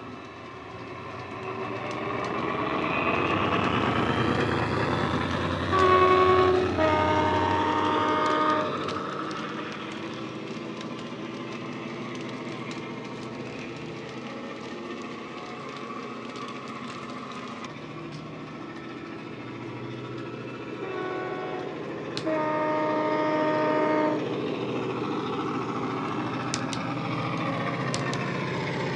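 Class 68 diesel locomotive sound file from a model's DCC sound decoder, played through its small speaker: the diesel engine runs steadily, growing louder over the first few seconds. The two-tone horn sounds twice, about six seconds in and again about twenty-one seconds in, each time a short high note followed by a longer low note.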